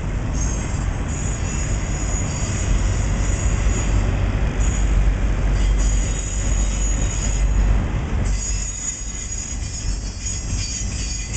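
Intermodal freight train's trailer-on-flatcar cars rolling past: a heavy rumble of steel wheels on rail, with high-pitched wheel squeal that comes and goes several times.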